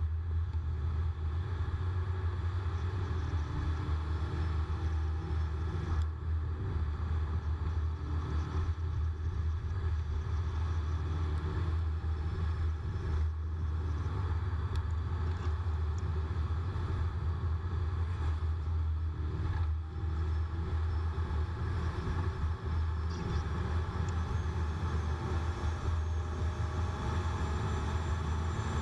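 Car engine and tyre noise heard from inside the cabin while driving at a steady speed: a steady low rumble.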